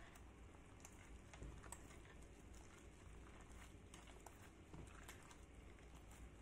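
Faint, irregular soft pats and rustles of a hand mixing flour into milk for bread dough in a plastic basin, over a low hum.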